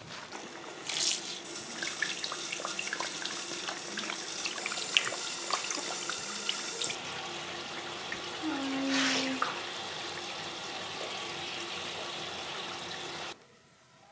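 Shower water spraying steadily from an ultrafine-bubble shower head, rinsing the shampoo off a wet puppy over a tiled floor. It starts about a second in and cuts off suddenly shortly before the end.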